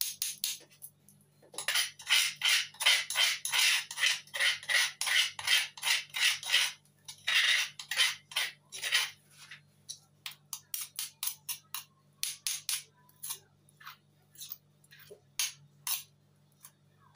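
Metal spoon scraping and tapping chili paste off a stone pestle into a nonstick wok: quick repeated strokes, about four a second, for the first half, then thinning to scattered clicks.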